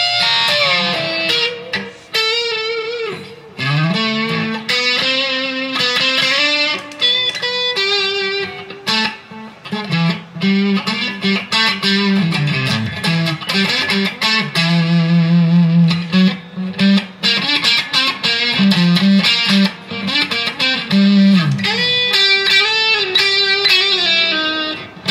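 Les Paul-style electric guitar played through an amplifier: a single-note lead solo with string bends and long held notes.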